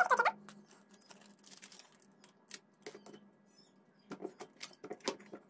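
Aluminium foil tape being peeled and pressed down by hand: scattered crinkles and small taps, with a cluster of louder ones about four to five seconds in, over a faint steady hum.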